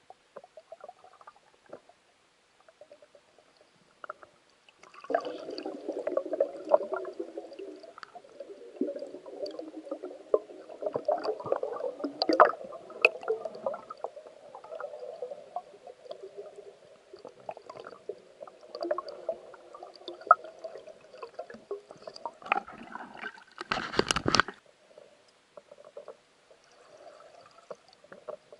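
Underwater gurgling and crackling, muffled through a camera housing, with many small clicks and knocks from a diver handling a speared carp. The gurgling starts about five seconds in, and one short, louder rush of water comes near the end.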